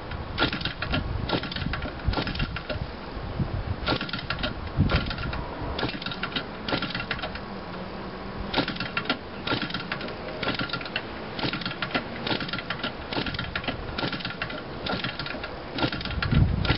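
Small gasoline model-aircraft engine being hand-flipped by its propeller again and again, each flip giving a short burst of rapid clicks as the engine turns over without catching. Near the end there is a louder, deeper thump.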